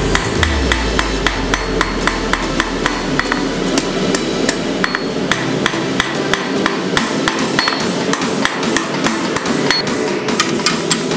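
Hand hammer forging a red-hot railroad-spike blade on a steel anvil: a steady run of sharp hammer blows, about three a second.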